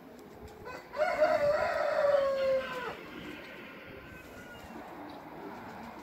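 A rooster crowing once: a single drawn-out crow of about two seconds, starting about a second in and sagging slightly in pitch before it stops.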